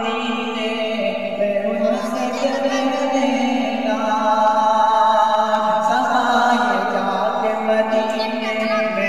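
A man singing a naat unaccompanied into a microphone, drawing out long, melodic held notes.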